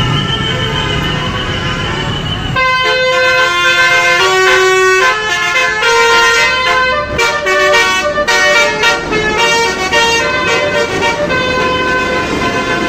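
Bus telolet horn, a multi-tone musical bus horn, playing a quick tune of stepped notes starting about two and a half seconds in and repeating.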